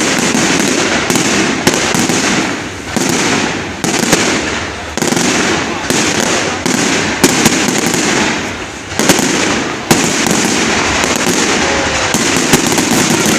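Fireworks display going off: dense crackling with many sharp bangs, easing briefly three times before picking up again.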